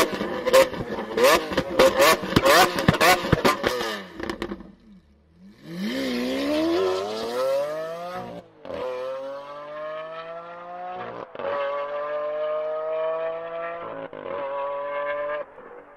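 Lamborghini Aventador LP700-4's V12 revved in quick blips with sharp exhaust pops and crackles, then pulling away hard at full throttle, its pitch rising through the gears with upshifts about every three seconds, fading as it goes.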